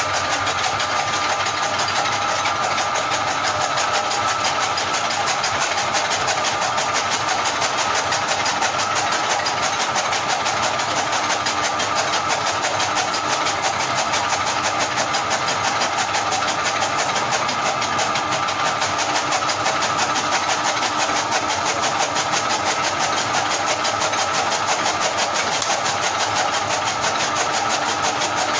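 Motor-driven chaff cutter running steadily, chopping green fodder as it is fed in by hand, with a fast even whirr.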